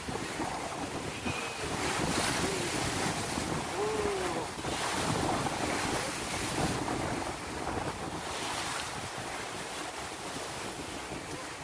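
Sea waves washing and wind buffeting the microphone, the surf swelling every few seconds.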